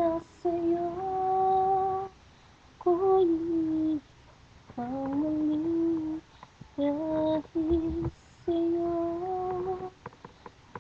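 A person humming a slow tune in long held notes, about five phrases with short breaths between them, and a few faint clicks near the end.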